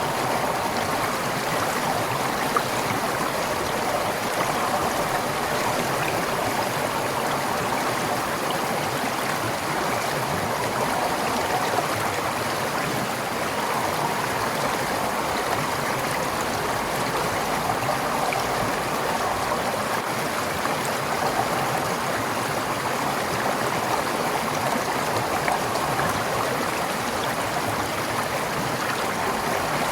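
Forest stream flowing over stones, a steady rush of water with small gurgles and splashes.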